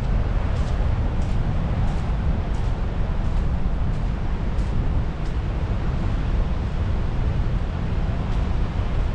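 Wind buffeting the microphone: a loud, steady, low rumbling noise that stays the same throughout.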